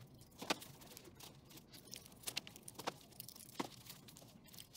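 Faint, scattered crinkles and ticks as gloved hands handle a dead boa constrictor's opened body on a newspaper-covered table.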